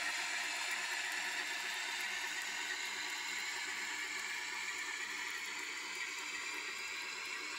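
N-gauge model freight wagons rolling over the track, a steady rolling noise that slowly fades as the train moves off.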